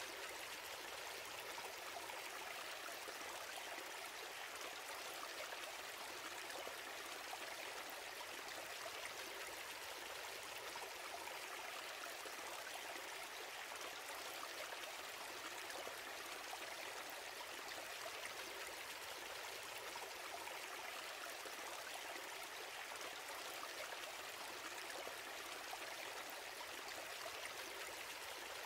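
Steady, faint, even hiss with no events or changes.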